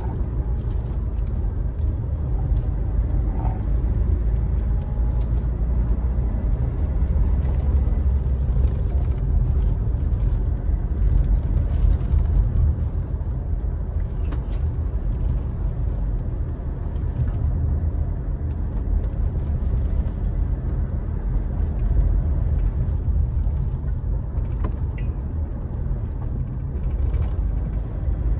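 Cabin drone of a Mitsubishi Montero Sport's diesel engine and tyre noise, heard from inside the cabin as the SUV climbs a winding hill road in a manual gear. A steady low rumble that swells and eases slightly, with a few faint ticks.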